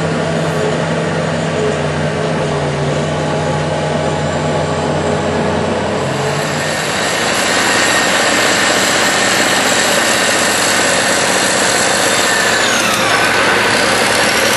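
Excavator's diesel engine and hydraulics working: a steady engine drone that shifts pitch about halfway through and then gets a little louder with a high whine, and a whine that falls in pitch near the end.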